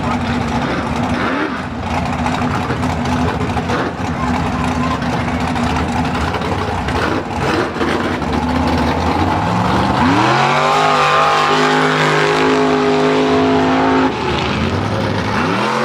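Mud-bog truck's engine running hard through a mud pit; about nine seconds in the revs climb steeply and hold high, fall away about fourteen seconds in, then climb again near the end.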